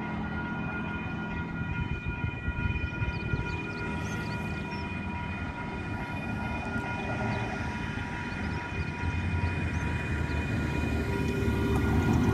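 Diesel train rumbling as it moves away from the level crossing, with several steady high whining tones held over the rumble. A car drives past near the end.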